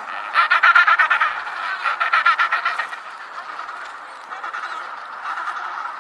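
A flock of birds calling: two loud bouts of rapid, pulsed, honking calls in the first three seconds, then quieter overlapping chatter.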